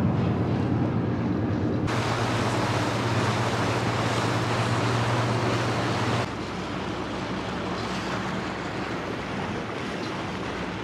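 Passenger ferry under way: a steady low engine hum beneath wind on the microphone and water rushing past the hull. The rushing noise jumps louder about two seconds in and drops back abruptly about six seconds in.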